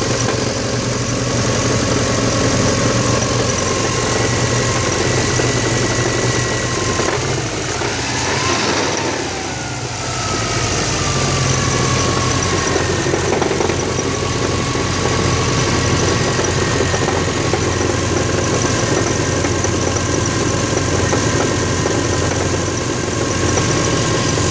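Subaru EJ205 turbo flat-four idling with a grinding noise from the bellhousing, first taken for the transmission. Its cause was later found to be loose flywheel bolts and snapped flywheel set screws lodged against the crankshaft. The level dips briefly about eight seconds in, and a few falling tones follow.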